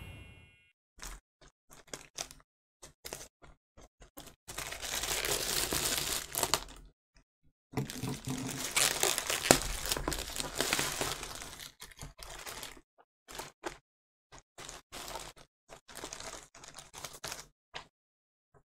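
Plastic poly mailer bag being torn open and crinkled by hand: two long stretches of tearing and rustling plastic in the middle, with shorter, lighter rustles before and after.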